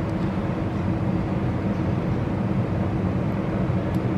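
Steady background machinery hum: a constant low drone under an even rushing noise, like a running ventilation unit, unchanging throughout.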